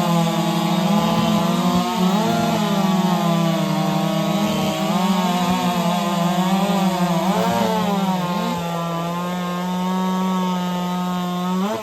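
Modified two-stroke racing chainsaw in the 4-cube class running flat out through a log, making three quick cuts. Its high engine note holds steady, dips and swings briefly a few times between cuts, then winds down when the throttle is released at the end.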